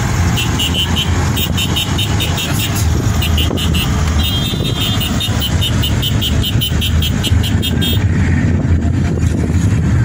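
Car driving, with steady engine and road rumble heard inside the cabin, and a rapid high-pitched pulsing chirp over it, about four pulses a second, for much of the time.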